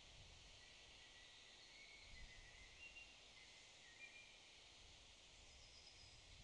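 Near silence: faint forest ambience, with distant birds giving short high chirps now and then over a soft hiss and a low rumble.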